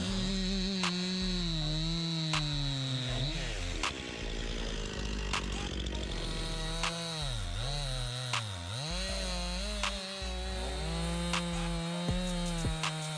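Two-stroke chainsaw running at high revs while cutting wood. Its pitch drops sharply twice in the middle, about seven and eight and a half seconds in, and climbs back each time, with scattered sharp clicks throughout.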